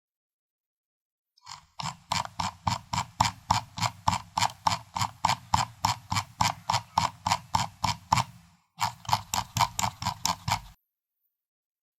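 Computer mouse scroll wheel clicking notch by notch, about four or five clicks a second. One run starts just over a second in and lasts about seven seconds; after a brief pause a second run lasts about two seconds.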